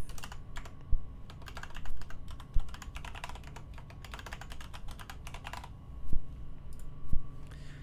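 Typing on a computer keyboard in several quick bursts of keystrokes, with a few heavier key thuds among them.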